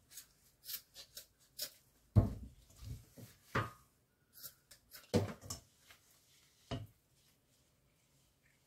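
Pieces of semi-dried eel handled and dropped in a stainless steel bowl: a handful of dull knocks against the bowl, with lighter clicks and rustling between.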